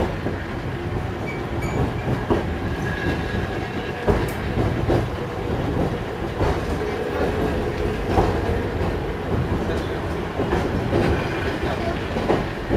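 Myoken Cable funicular car running down its track, heard from inside the car: a steady low rumble of the wheels on the rails, broken by a few sharp knocks spread through the run.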